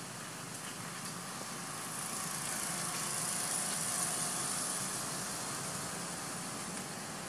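A motor vehicle's engine running close by, growing louder for a few seconds and then easing off slowly.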